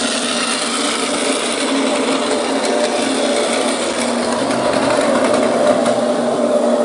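Plarail toy train's small battery-powered motor running steadily, a whine with rattling from the plastic wheels and track.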